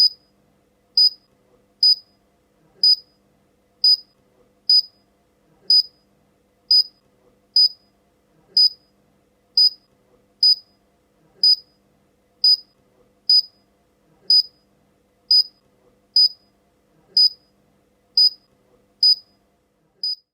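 Short, high-pitched electronic beeps repeating steadily, about one a second, each the same brief tone.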